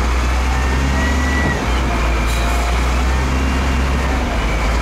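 Heavy diesel machinery engines running steadily under load, a deep drone with a faint high whine coming and going above it and a short hiss about two seconds in.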